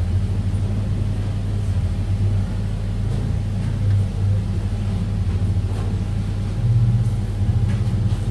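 Steady low mechanical rumble, with a few faint light clicks.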